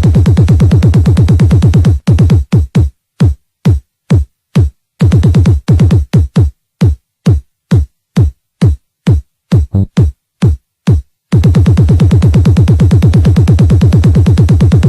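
Electronic dance music from a DJ mix, built on a fast, heavy drum-machine kick beat. About two seconds in, the beat breaks down into separate kick hits with silent gaps between them, and the full beat comes back about eleven seconds in.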